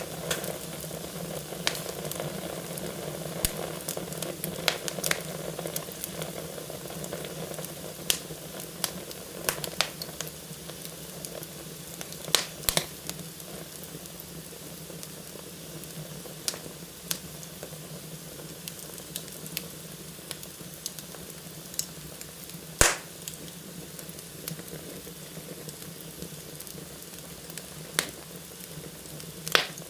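Fire burning in a fireplace: a steady hiss under scattered sharp crackles and pops, with a few louder pops, one about two fifths of the way in and others later.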